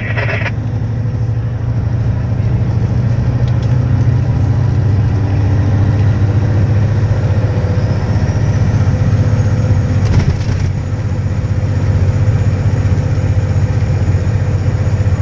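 Heavy hauling truck's engine running steadily under way, heard from inside the cab as a low, even drone that grows a little louder after about two seconds.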